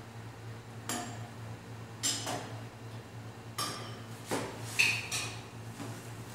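Kitchenware clattering: about six separate clinks and knocks of dishes, pots or utensils being handled, one near five seconds giving a short ringing clink. A steady low hum runs underneath.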